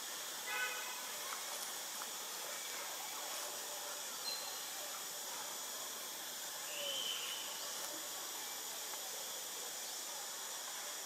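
Steady high hiss of outdoor ambience, with a few faint short high-pitched calls: one about half a second in, a brief peep near four seconds, and a short bending call around seven seconds.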